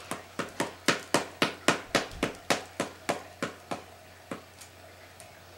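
Paddle ball toy: the ball on its elastic string striking the paddle in a steady run of sharp taps, about four a second, then only a few scattered taps after nearly four seconds as the run falters.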